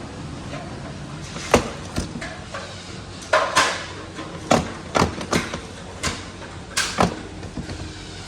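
Steelcase Leap chair seat sliding on its rail and glides, giving an irregular series of sharp plastic clicks and knocks, with a quick cluster about three and a half seconds in.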